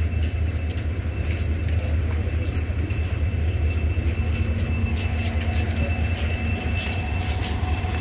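Steady low rumble of a passenger train standing at the platform, with light scattered clicks over it.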